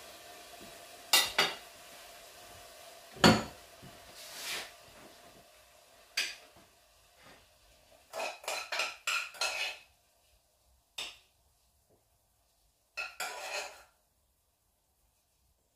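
A metal utensil knocks and scrapes against a frying pan, with pan-on-metal clunks, as vegetables are spooned out of the pan: a few sharp knocks in the first six seconds, a quick run of short scrapes about eight seconds in, and a few more clinks near the end. A faint steady hiss dies away over the first few seconds.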